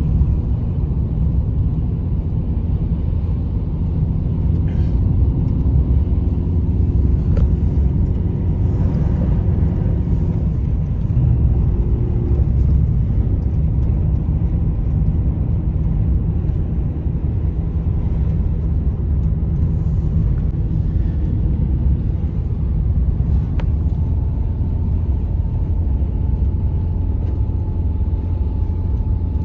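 Strong blizzard wind making a loud, steady, deep rumble without distinct gusts.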